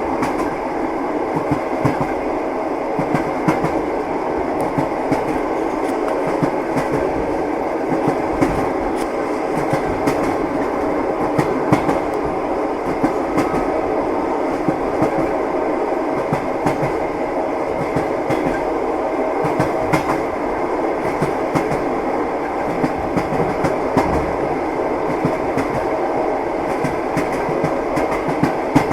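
A moving train's wheels knocking on the rails over a steady running rumble, with frequent irregular clacks and a faint steady hum.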